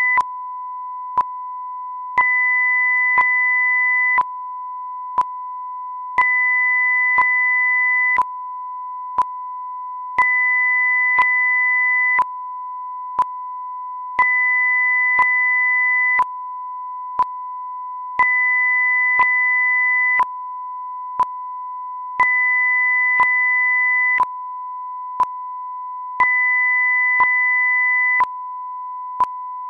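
Electronic audio-video sync test signal: a steady pure test tone, with a tone an octave higher switching on and off every two seconds and a short click once a second.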